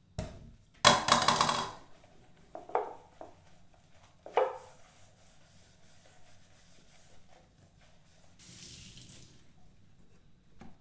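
Kitchen dishes and pans being handled: a loud clatter about a second in, then two sharp knocks with a short ring, and a soft hiss near the end.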